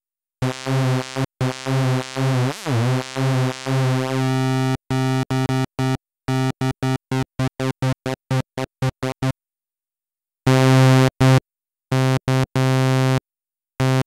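Roland SH-4d synthesizer's Juno-106 model playing its initialized patch: a bright tone on one repeated note, first held for a few seconds, then as short notes that start and stop abruptly. After a pause of about a second, a few more notes follow.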